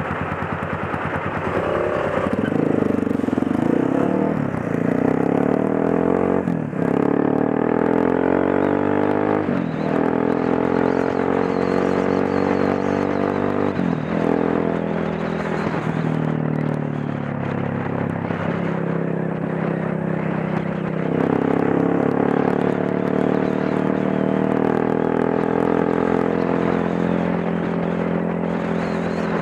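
Motorcycle engine pulling away from a standstill, rising in revs and shifting up through the gears about four times, then running steadily at cruising speed.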